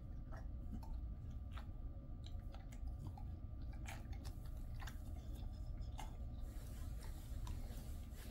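Jindo dog chewing and smacking its lips after a snack: a scattered run of small wet mouth clicks, about one a second, with a soft rubbing of a paper wipe near the end.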